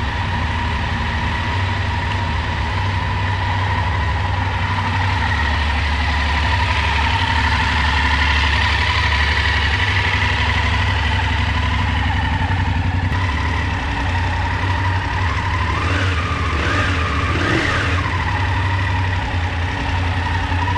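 BMW F750GS 853 cc parallel-twin engine idling steadily, with a steady high tone running alongside the low engine note.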